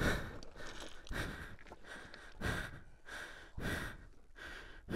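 A man breathing hard, with a heavy breath about once a second, out of breath from wrestling a dropped heavy adventure motorcycle on a steep rocky slope.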